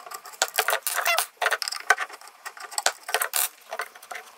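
Small metal clips and screws being worked loose from a factory Nissan ECU circuit board and its metal case with fingers and a screwdriver: a quick, irregular run of sharp clicks, taps and short scrapes.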